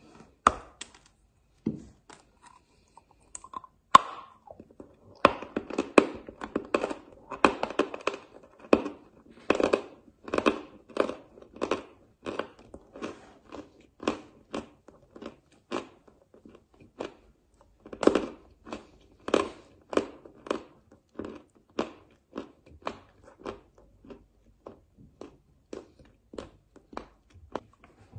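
A person biting and chewing a lump of white chalk: a steady run of sharp, dry crunches, about two a second.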